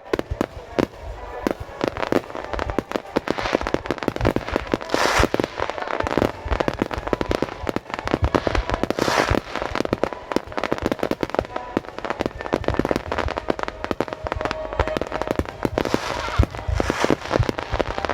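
Fireworks display: a dense, rapid barrage of bangs and crackling, with deep booms of shells bursting and swells of crackle at several points.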